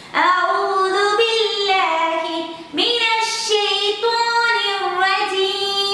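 A woman singing a slow melody alone in a high voice, holding long notes, with a short breath pause about halfway through.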